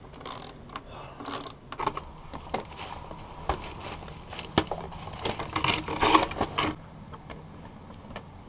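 Hand tool and plastic parts of a backpack leaf blower clicking and rattling during reassembly: a ratchet clicking at the blower's plastic case, then the corrugated blower tube being handled and pushed into place. The clicks and knocks come irregularly and are busiest and loudest about six seconds in.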